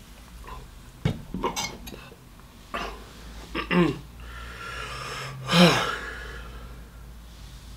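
A man burping after gulping fizzy cola: a shorter burp about three and a half seconds in, then a loud, falling burp about five and a half seconds in. A few sharp knocks about a second in as the plastic bottle is handled and set down.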